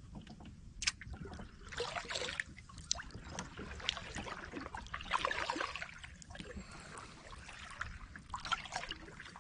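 Kayak paddling: paddle blades dipping and pulling through the water with splashing and dripping, in irregular strokes, along with a few light clicks.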